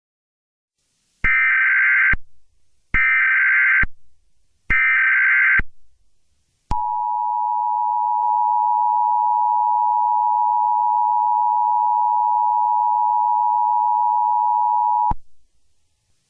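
Emergency Alert System SAME header: three short data bursts, each a harsh electronic screech of about a second with brief gaps between, then the EAS two-tone attention signal held steady for about eight seconds before it cuts off abruptly.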